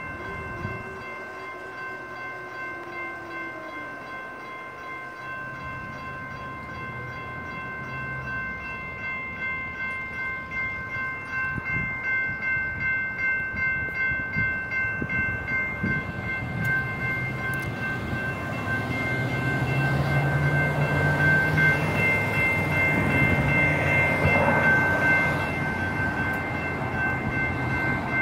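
Railroad crossing's GS Type 2 electronic bells ringing in a steady repeated ding, about twice a second. Beneath them a light rail train comes through, its rumble building past the middle and loudest about two-thirds of the way in.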